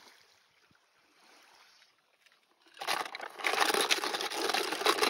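Near silence for the first half, then water splashing and sloshing from a little past halfway.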